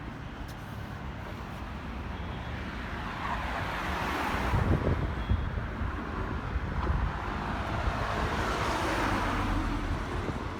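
Road traffic: two vehicles pass one after the other, their tyre and engine noise swelling and fading, the first about four seconds in and the second near the end, over a low wind rumble on the microphone.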